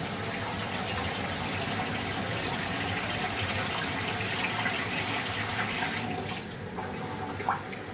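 Tap water running into a steel pot while rice and green moong dal are washed by hand, a steady rush that stops about six seconds in. A short click comes near the end.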